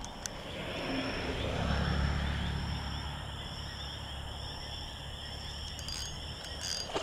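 Evening chorus of frogs and insects: steady high-pitched trilling. A low rumble swells about a second in and fades again by about three seconds.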